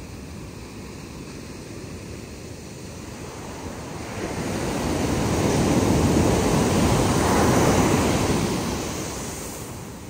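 Ocean surf on a sandy beach: a steady wash of foam, then a wave breaks close to shore about four seconds in, swelling to a loud rush for a few seconds before fading.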